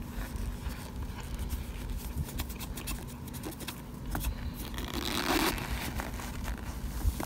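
Oven-baked cornstarch chunks crackling and crunching as a spoon scrapes and presses into them in the pan, with scattered small clicks and a louder squeaky crunch about five seconds in.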